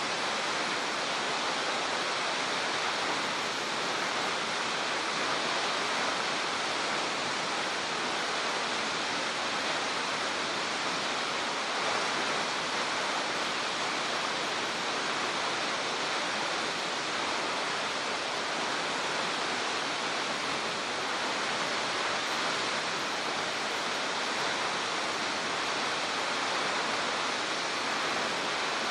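A tall waterfall plunging about 86 m, heard from a viewing platform as a steady, even rush of falling water with no breaks or changes.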